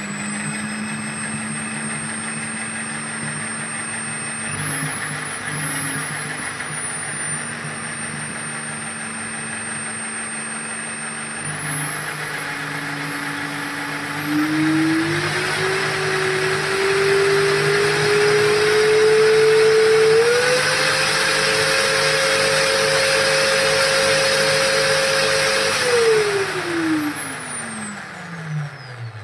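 Bosch electric drill running, driving a cardboard gearbox fitted with salvaged angle-grinder gears. The motor whine holds steady at low speed, then climbs in steps to full speed and holds, and near the end the drill is let off and spins down.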